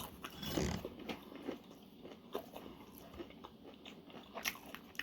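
A person biting and chewing food close to the microphone: faint crunches and small mouth clicks, loudest about half a second in.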